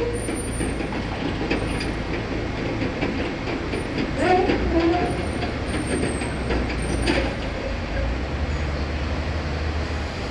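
Heavy earthmoving machine's diesel engine running steadily, with scattered metallic clanks and a few short squeals about four to five seconds in.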